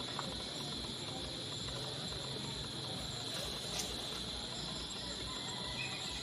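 Insects droning in a steady, high-pitched chorus, with a single faint click about two-thirds of the way through.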